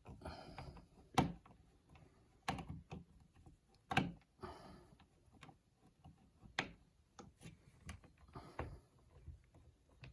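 Scattered sharp clicks and light knocks from handling and adjusting an electrical wall outlet and its screws, a click every second or two with quieter rustling between.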